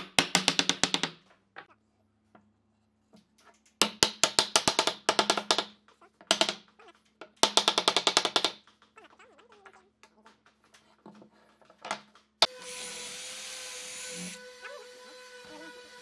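Wooden mallet rapidly tapping a wooden cross-lap joint together, in four quick runs of knocks. About twelve seconds in, an electric drill starts with a steady whine and bores into the wood for about two seconds, then its motor whine carries on more quietly.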